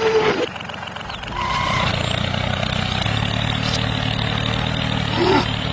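Miniature DIY toy tractor: a small motor's whine drops in pitch and stops about half a second in, then a low, steady, engine-like idling hum runs on.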